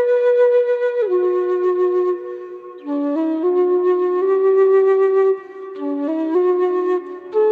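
Solo flute playing a slow, gentle melody of held notes that step up and down, with short pauses between phrases.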